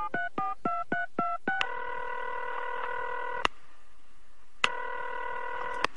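Touch-tone telephone being dialled, a quick run of short keypad beeps in the first second and a half. Then the ringing tone of the called line: one steady tone for about two seconds, a pause, and a second ring near the end.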